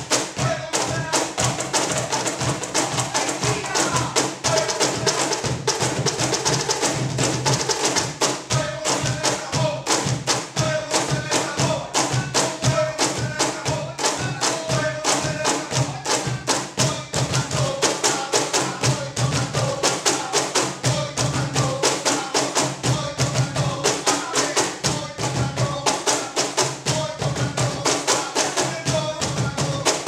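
Ensemble of four Peruvian cajones played together: a dense, fast rhythm of hand slaps on the wooden box drums, with deep bass tones under sharp top-edge strikes.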